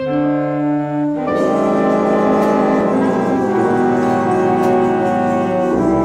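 Large mixed ensemble of reeds, brass and strings playing held chords in a live performance; more instruments join about a second in and the sound grows fuller.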